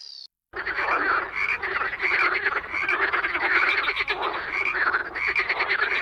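Many frogs croaking at once in a dense, continuous chorus of overlapping pulsed calls, starting about half a second in after a brief silence.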